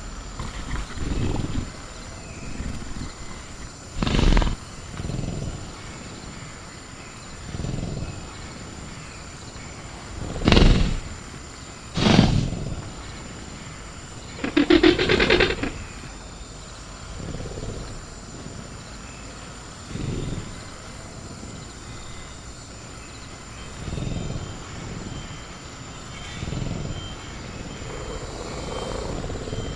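Sound-designed velociraptor growling and snorting low every few seconds, with a louder rasping call about halfway through. Three sharp metal bangs of the cage being rattled come between about 4 and 12 seconds in. Steady cricket chirring runs underneath.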